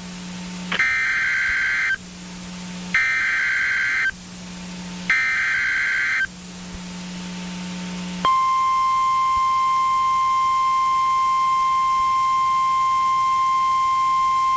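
Emergency Alert System SAME header: three screeching bursts of digital data, each about a second long, then about eight seconds in the NOAA Weather Radio alarm tone, one steady high pitch, signalling the start of a severe thunderstorm warning.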